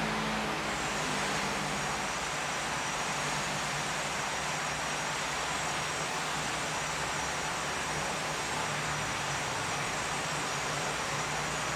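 Steady machine noise: an even hiss with a low hum underneath, holding constant like a motor running at one speed.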